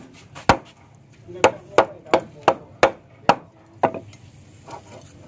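A machete knocked down through a sailfish on a wooden plank, its back struck with a wooden stick: about nine sharp knocks, coming around three a second in the middle and fading to a faint one near the end.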